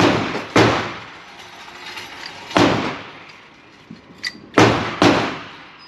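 Five gunshots at uneven spacing: two close together near the start, one in the middle and two in quick succession near the end, each with a ringing tail.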